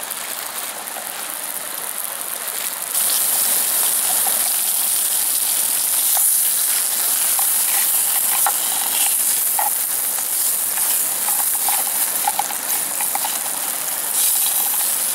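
Sausages sizzling in a frying pan over a backpacking canister stove, with the burner's hiss underneath; about three seconds in the stove is turned up and the hissing gets louder. Small scrapes and clicks of a plastic spatula turning the sausages in the pan.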